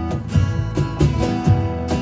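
Instrumental passage of acoustic guitars strummed and picked over a cajon tapping out a steady beat, about four hits a second.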